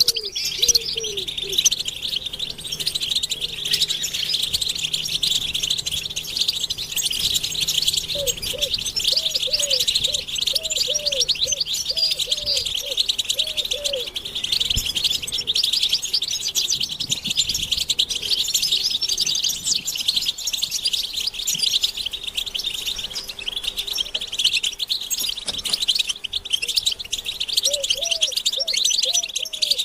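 A flock of European goldfinches twittering and singing together in a dense, unbroken chatter of high, quick notes. A run of low, quickly repeated notes sounds behind them twice, once in the middle and again near the end.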